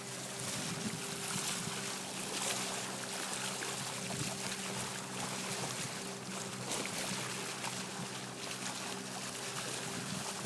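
Water rushing and splashing along the hull of a Voyage 500 sailing catamaran under way, in uneven surges, with a faint steady low hum underneath.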